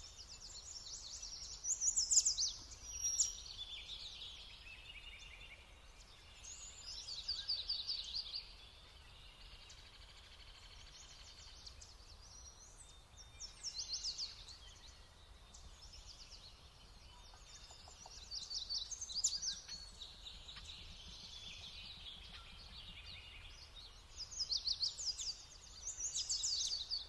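Songbirds singing: short phrases of quick high notes come every few seconds, over a faint steady low hum.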